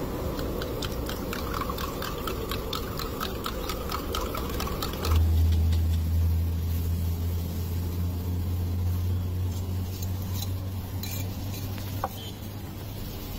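A metal spoon clicking rapidly and evenly against a steel tumbler as eggs are beaten in it. About five seconds in the clicking stops and a steady low hum takes over.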